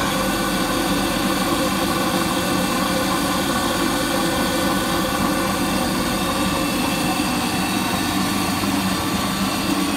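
Essex Silver Line 8-inch drum floor sander running: its 120-volt electric motor and spinning sanding drum give a steady, loud mechanical hum.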